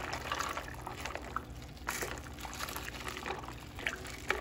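Silicone spatula stirring bow-tie pasta into a creamy, watery sauce in a slow cooker: irregular wet sloshing and squelching, with a couple of louder strokes.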